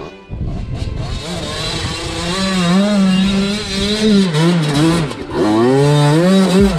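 Off-road motorcycle engine revving hard, its pitch wavering up and down as the throttle is worked, dipping briefly about five seconds in before climbing again.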